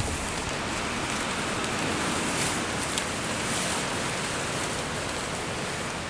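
Steady heavy rain falling: an even hiss with a few faint ticks of drops.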